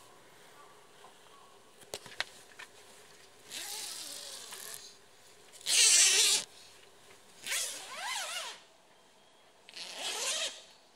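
Tent door zipper being pulled open in four strokes, the second the loudest, with a couple of light clicks about two seconds in.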